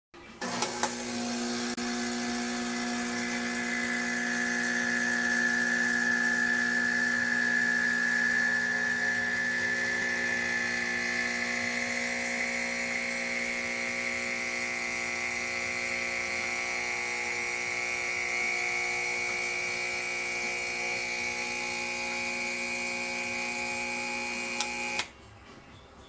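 Francis Francis X3 espresso machine's vibratory pump humming steadily while pulling a double espresso shot, its pitch edging slowly upward. It starts with a click about half a second in and cuts off with a click near the end.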